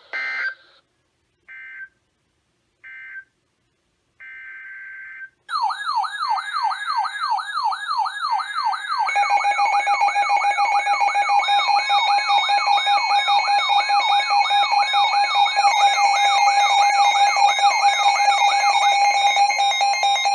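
Emergency Alert System tones. Short warbling data bursts come first, with a longer burst just before five seconds in. Then a loud electronic alarm starts: rapidly repeating falling sweeps, about three a second, joined by steady tones that build up in layers.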